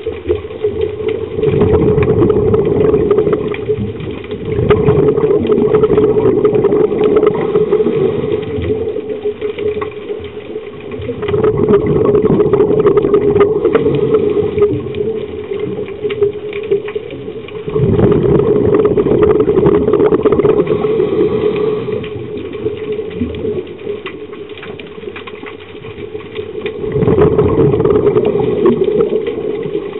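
A scuba diver's regulator breathing heard underwater: exhaled air bubbles out in long burbling surges a few seconds apart, with quieter spells between breaths.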